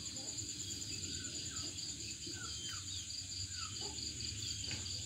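Night insects, crickets chirring in a steady, pulsing high drone, with short chirps scattered over it about every half second and a low steady hum beneath.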